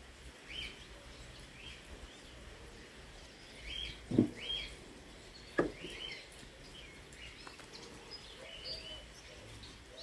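Songbirds chirping and twittering in short calls throughout. There are two brief, louder low sounds about four and five and a half seconds in.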